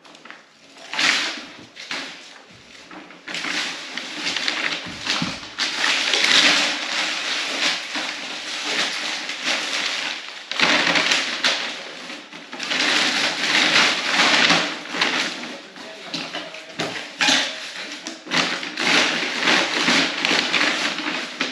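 Wrapping paper and packaging rustling and crumpling in irregular swells of a second or more at a time, as gift wrappings are cleared up.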